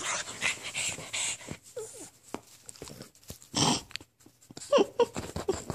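A dog breathing noisily in short huffs and snuffles as it squirms on its back being petted, with a couple of brief whimpers, about two seconds in and near the end.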